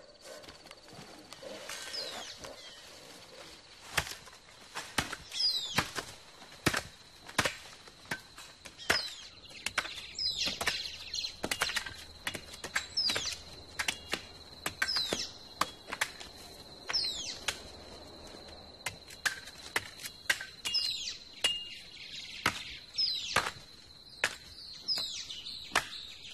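Machete blows chopping into sapodilla bark, sharp irregular strikes about every second, as the tree is cut with grooves to bleed its chicle latex. Birds call in short falling chirps over a steady high tone.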